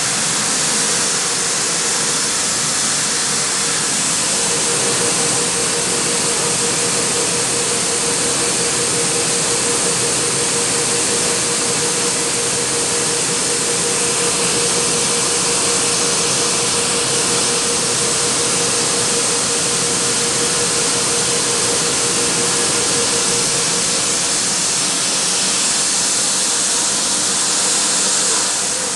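A 70-kilo Revelation commercial coffee roaster running at its charge temperature, its fans and gas burner giving a steady, hiss-heavy roar. A steady hum joins in about four seconds in and fades out a few seconds before the end.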